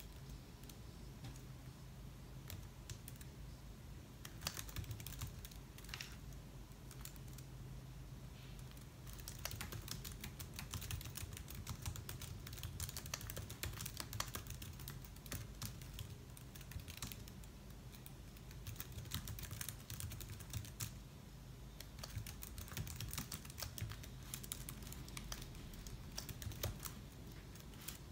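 Typing on a laptop keyboard: faint, quick key clicks in irregular runs, sparse for the first few seconds and then denser, over a faint steady low hum.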